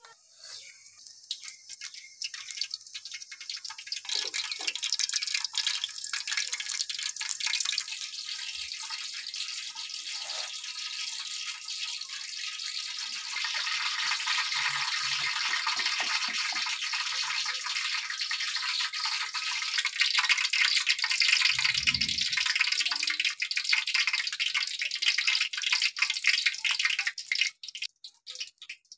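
Food frying in hot oil: a steady crackling sizzle that builds over the first few seconds and cuts off near the end, with a low thud about two-thirds of the way through.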